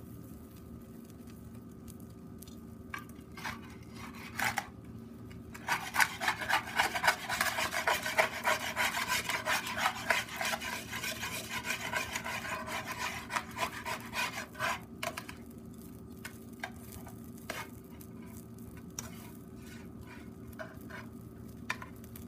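Metal tongs scraping and stirring in a frying pan: a few clicks, then a run of rapid scraping strokes lasting about nine seconds, then a few more clicks and taps.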